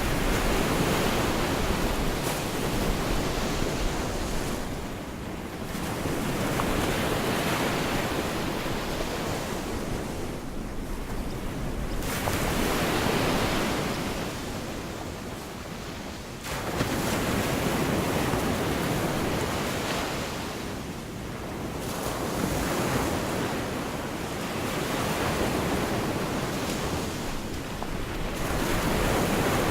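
Gulf of Mexico surf breaking on a beach, the wash of each wave swelling and fading about every five to six seconds, one wave coming in more suddenly about two-thirds of the way through.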